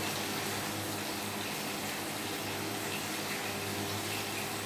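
Prawns, garlic and onion frying in oil in a pan on a lowered flame: a steady, even sizzle with a faint low hum underneath.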